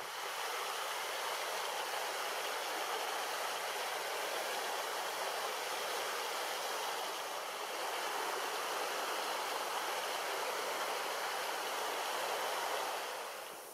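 Steady rushing of a small river's fast current running past ice, an even hiss without pauses that eases off near the end.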